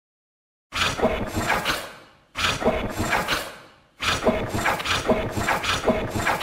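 Robot sound effect: three bursts of rapid mechanical clicking mixed with short tones, each fading out, after a moment of silence.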